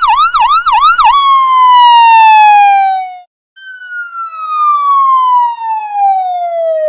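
Electronic emergency-vehicle siren: a fast yelp warbling about three times a second, which changes to a long falling wail that cuts off about three seconds in. A moment later a second long wail starts, slides slowly down, and sweeps back up near the end.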